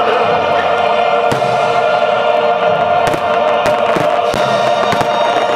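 A choral song with accompaniment playing loudly and steadily. About five sharp fireworks bangs cut through it.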